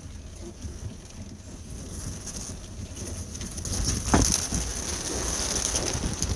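Pigeons' wings flapping and clattering as young birds are let out of the loft, with a sharp knock about four seconds in and the flapping growing louder after it.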